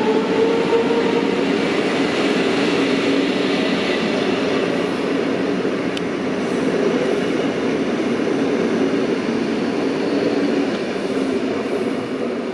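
DB class 425 electric multiple unit running past, its traction equipment giving a steady whine of several tones over the rumble of wheels on rail. The sound dies away near the end.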